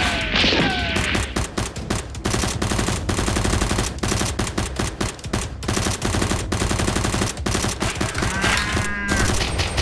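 Rapid automatic gunfire, a dense run of shots several a second with hardly a break.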